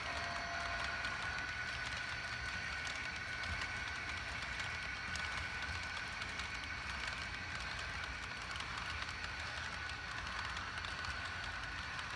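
Model diesel locomotives running as a consist with a train of cars on the track: a steady high motor and gear whine over a low rumble of wheels rolling on the rails.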